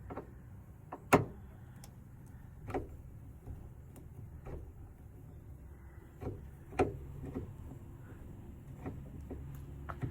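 Scattered small clicks and knocks of a screwdriver working a little Phillips screw out of a car's plastic door trim, the sharpest about a second in, over a low steady hum.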